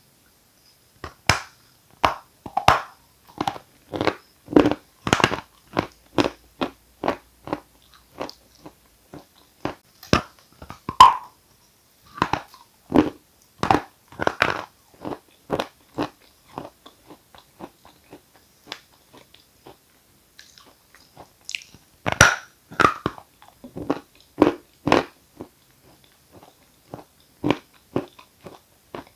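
Dry edible chalk of the 'Giant' variety bitten and chewed close to the microphone: runs of sharp crunches, several a second, with a quieter spell midway.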